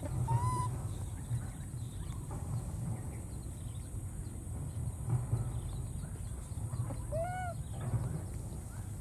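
Baby monkey calling twice: a short high cry about half a second in, and a longer arched cry that rises and falls about seven seconds in. A steady low rumble runs underneath.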